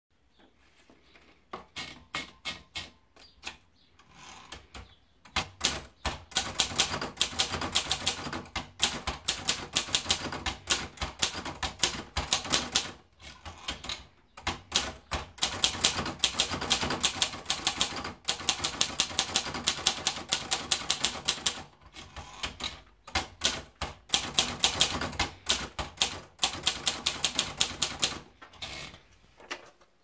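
Gracia De Luxe manual portable typewriter: a few scattered clicks as the paper is fed in, then keys and typebars striking rapidly in three runs of typing, with a short pause between each line.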